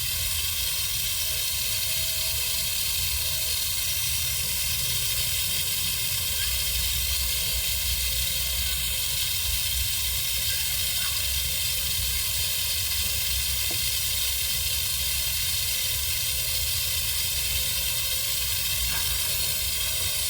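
Steady hiss of water spraying from the cracked hard-plastic water inlet elbow of a Sun Joe SPX2700 electric pressure washer, with a low rumble underneath.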